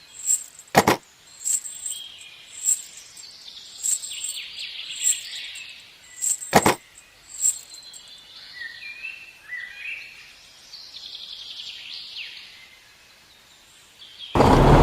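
Small birds chirping and twittering, with two sharp clicks. A loud, steady rushing noise starts just before the end.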